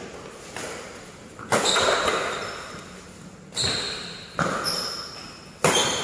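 Badminton rackets striking the shuttlecock in a fast doubles rally: about five sharp hits a second or so apart, each echoing in a large hall, the loudest about a second and a half in.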